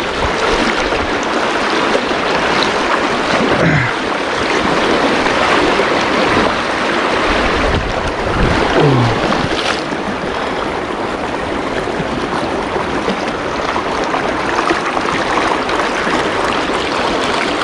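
Shallow river riffle: water rushing steadily over stones and logs close by, loud and continuous.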